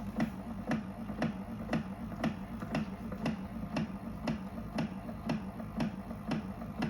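Keurig coffee brewer dispensing a 10-ounce cup of hot water: a steady pump hum with a regular tick about twice a second.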